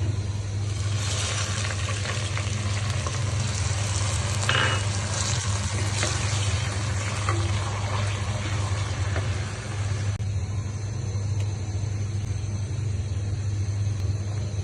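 Food sizzling in hot oil in a cooking pan, a steady frying hiss that eases off about ten seconds in, with a few light ticks and a steady low hum underneath.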